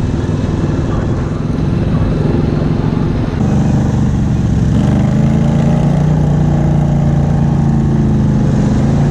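Honda Rubicon 500 ATV's single-cylinder engine running under way on a sandy trail, getting louder and steadier about three and a half seconds in.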